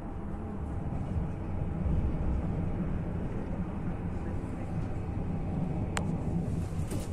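Steady low rumble of a CityElefant electric train running at speed, heard from inside the carriage. There is one sharp click about six seconds in.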